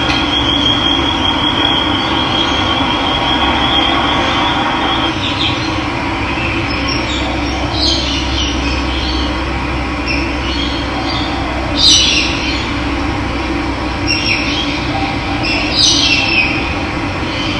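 Steady rush of running water with birds calling over it: short high calls break through now and then, most clearly about twelve and sixteen seconds in, and a thin high trill runs through the first few seconds.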